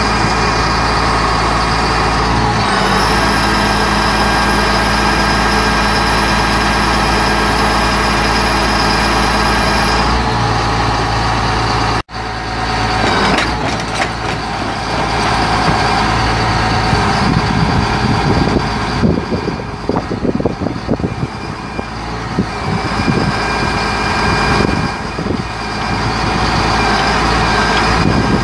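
The Caterpillar 3126 inline-six turbo diesel of a Sterling flatbed truck runs steadily, powering the hydraulics of a knuckle-boom crane as the boom is moved. The sound cuts out briefly about twelve seconds in, then returns more uneven and fluctuating.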